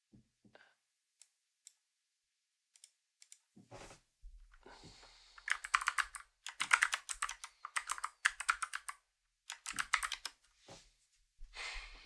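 Typing on a computer keyboard: a few scattered key clicks at first, then fast runs of keystrokes from about halfway through, with a short burst near the end.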